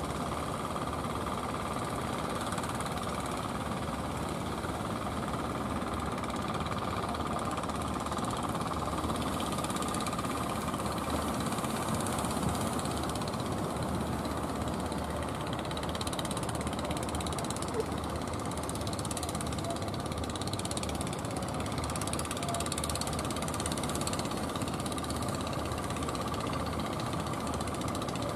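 Engines of motorised outrigger fishing boats running steadily under way, a continuous fast knocking drone with a steady hum.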